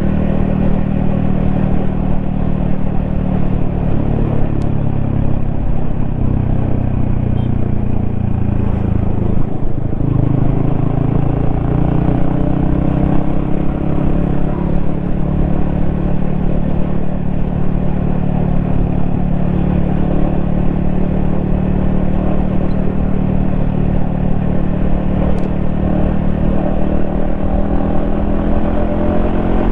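Yamaha XSR155's single-cylinder 155 cc engine running under way, heard from the rider's helmet. The engine note sags about ten seconds in, then climbs steadily again, and rises once more near the end.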